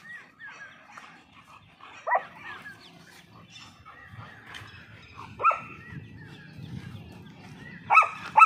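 Dogs tugging at a toy together and barking in play. There are single sharp barks about two and five and a half seconds in, and two quick barks near the end, with softer yips between.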